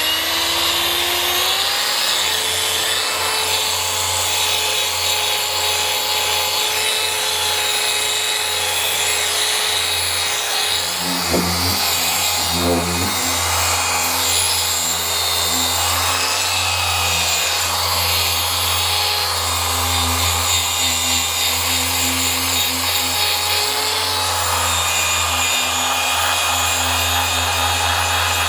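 Small-pad paint polisher running against a car panel's paint while it cuts with polishing compound. Its whine rises over the first couple of seconds as it comes up to speed, then holds steady.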